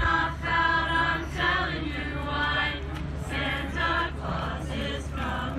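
A high school choir singing a song in phrases, over a steady low hum.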